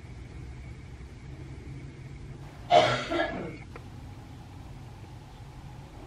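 A person coughs once, loud and brief, about three seconds in, over a steady low rumble like a distant engine or traffic.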